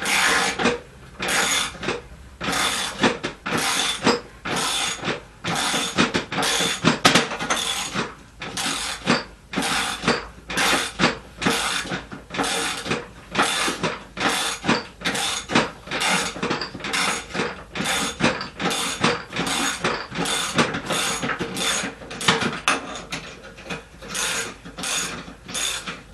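Hand ratchet wrench swung back and forth in steady short strokes, about one and a half a second, each stroke a clicking ratchet sound, as it unscrews the piston rod bolt of a Showa motocross fork.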